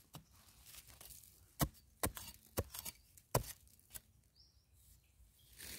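A digging tool striking hard, dry, stony soil while wild yam tubers are dug out. It gives about six sharp knocks at uneven intervals of roughly half a second to a second.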